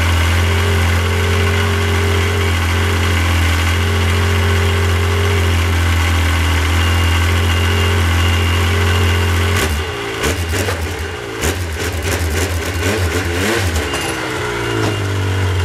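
Yamaha four-stroke snowmobile engine idling steadily, then from about ten seconds in revving up and down unevenly as the sled is backed off its trailer, with sharp knocks and clatter.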